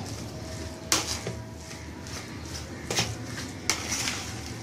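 Hands mixing and squeezing raw minced meat in a bowl, with three sharp knocks against the bowl, about a second in, at three seconds and just after.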